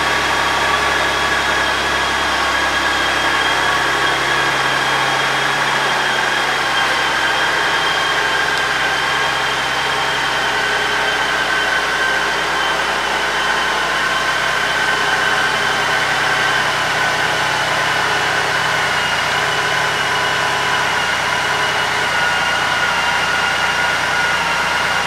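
Honda Gold Wing GL1800's flat-six engine idling steadily, with a steady high whine over the low running note that sinks slightly in pitch.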